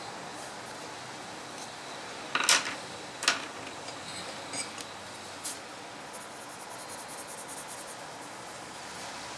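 Coloured pencils knocking, with two sharp clicks a little before the middle and a few lighter ticks after, as one pencil is set down and another picked up. A pencil then scratches lightly and rapidly on paper in the second half, over a steady background hiss.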